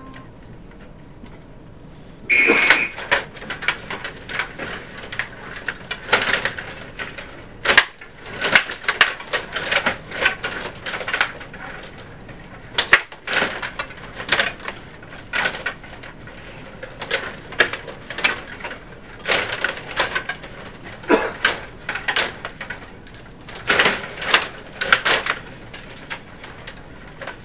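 Stiga table hockey game in play: irregular clicking and clattering of the plastic players, rods and puck against each other and the boards. A short high tone comes about two seconds in, just before the clatter starts.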